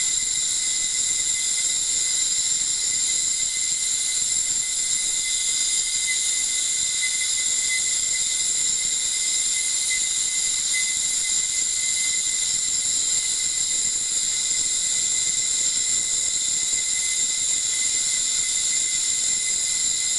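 Ultrasonic wax-dissolving equipment running steadily: an even, high-pitched hiss with several steady whining tones above it.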